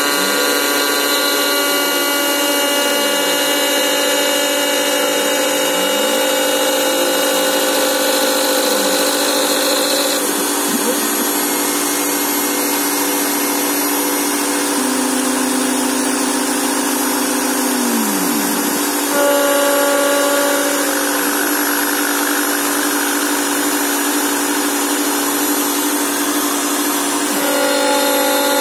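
Small CNC milling machine chamfering an aluminium part: the spindle runs with a steady set of tones while the axis stepper motors give repeated rising and falling tones as the cutter moves. The pitch of the machine changes a few times as moves start and stop.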